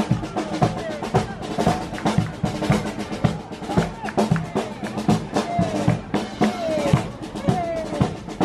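Small strolling brass band playing an upbeat tune, with a tuba bass line under a steady beat of bass drum and snare drum strikes.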